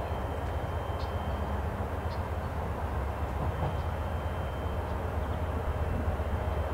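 VIA Rail GE P42DC diesel locomotive approaching at the head of a passenger train: a steady low engine rumble that slowly grows louder as it nears.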